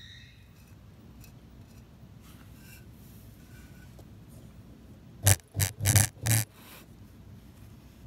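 Four short, loud handling noises in quick succession a little past the middle, over faint room noise, as the squeeze bottle of underglaze liner and the bisque mug are handled.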